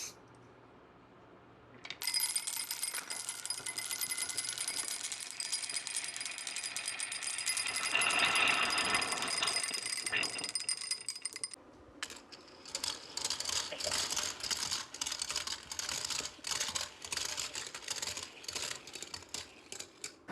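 Balls rolling and clattering through a HABA wooden marble run: a dense rattle of clicks with a high ringing for about ten seconds, a short pause, then separate clacks at about three a second as balls drop down the track.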